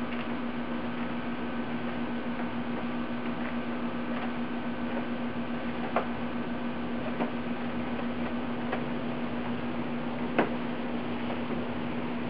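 Steady hiss with a constant low hum: the background noise of a recording of an empty room. A few faint sharp clicks fall in the second half, the loudest about ten seconds in.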